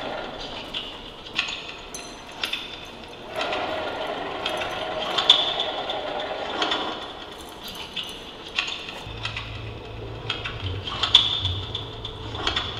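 Irregular metallic clinks and rattles, with a faint high ringing. A low steady hum comes in about nine seconds in.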